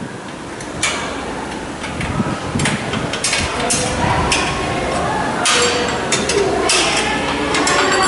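Wrenches clinking and tapping on the bolts and nuts of a steel rack frame as the nuts are loosened: eight or nine sharp, irregular metal clicks.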